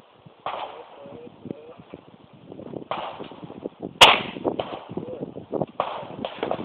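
A single shot from a .25-calibre Taurus pistol about four seconds in: one sharp crack.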